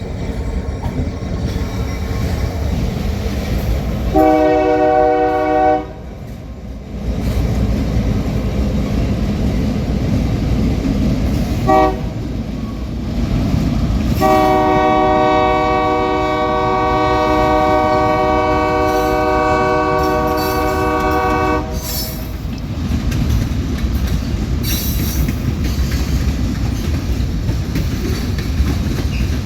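Train locomotive horn sounding a long blast, a brief toot, then a long blast of about seven seconds, over the steady rumble and clickety-clack of the passing train.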